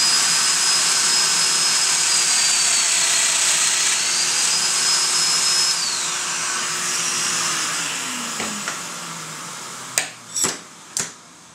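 Festool Domino joiner running with its dust extractor while plunging a mortise into a maple drawer side: the motor's high whine dips in pitch under load mid-cut, recovers, then the tool is switched off and winds down about six seconds in, the extractor's hiss fading by about eight seconds. Three sharp knocks follow near the end.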